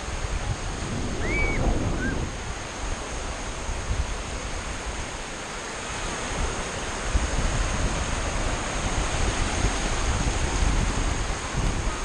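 Small surf waves breaking and washing over a sandy beach, with wind rumbling on the microphone.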